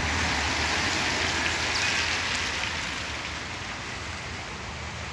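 Outdoor ambience: a steady hiss with a low rumble underneath, both easing off about three seconds in.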